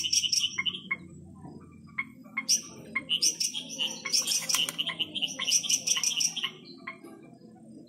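Night chorus of several different kinds of frogs calling at once: overlapping short high chirps and sharp clicks, busiest in two stretches in the middle.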